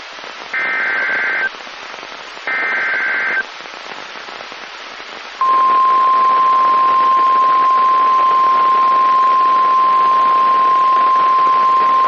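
Emergency Alert System activation on NOAA Weather Radio, heard over receiver static: two short bursts of SAME digital header data about a second apart, then about five seconds in the steady 1050 Hz warning alarm tone starts and holds. The header and tone announce a new warning.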